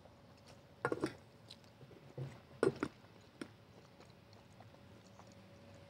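A man chewing a mouthful of roast chicken: a few short wet mouth clicks and smacks, loudest about a second in and again near the three-second mark. A faint steady hum runs underneath.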